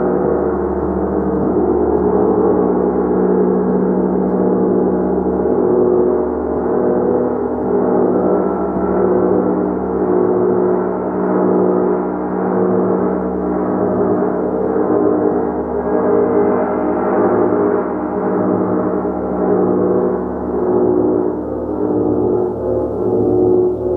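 A gong played continuously: a dense, sustained wash of many overlapping tones that swells and pulses gently, with no single strike standing out.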